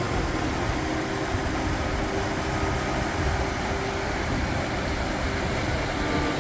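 Tour coach engine and road noise heard from inside the moving coach, a steady, even noise strongest in the low range.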